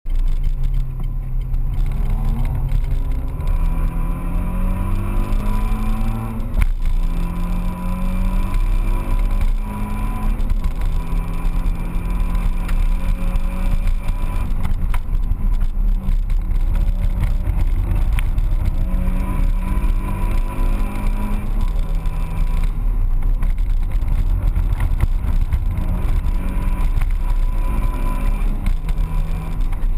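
Car engine heard from inside the cabin under hard acceleration on a track. The pitch climbs through the revs and drops back at each gear change or lift, over a constant low road and wind rumble.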